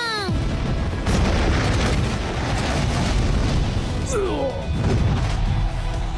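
Animated battle sound effects over dramatic music: a deep rumbling boom from about a second in, with a falling whine a little past the middle.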